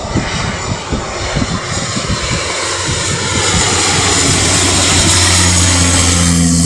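Aircraft engines growing steadily louder as a plane comes close, a broad roar with a tone that slides downward in pitch, and a low steady hum joining in past the middle.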